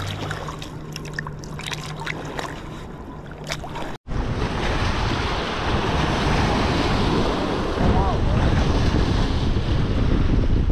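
Light splashing and dripping as a small fish is let go by hand in shallow water; then, after a sudden cut about four seconds in, wind buffeting the microphone and small waves breaking on a rocky shore, louder and steady.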